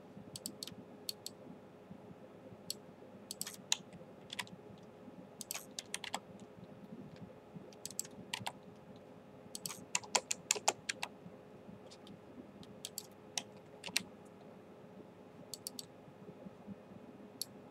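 Irregular clicks and taps from a computer keyboard and mouse, coming in scattered runs with a busier cluster about ten seconds in, over a faint steady hum.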